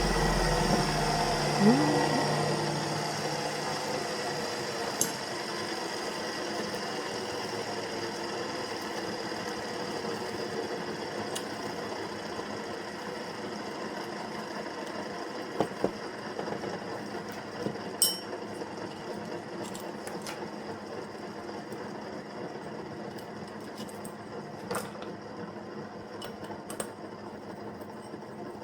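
A small motor running steadily, its hum fading slowly, with a few sharp clicks and taps.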